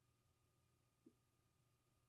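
Near silence: room tone, with one faint short blip about halfway through.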